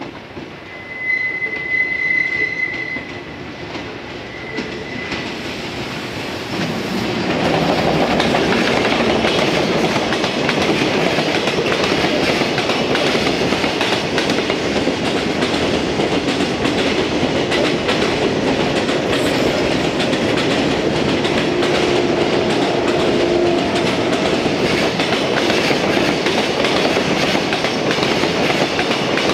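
Trains passing close by: a yellow local electric train, then an EF210 electric locomotive hauling a container freight train, with loud wheel rumble and rhythmic clacking over the rail joints. Near the start, a train whistle gives one high blast of about two seconds, then a short second blast.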